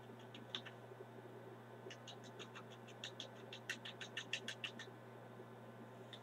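A quick run of light ticks, about five a second for a few seconds, from fingers tapping a small plastic sachet to shake the last of the pH buffer powder out into a bottle of water.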